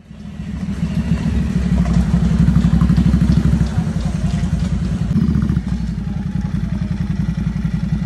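Ducati Scrambler's air-cooled L-twin engine running at low speed with a rapid, even low throb as the bike rolls in. It eases to a slightly quieter idle about two-thirds of the way through.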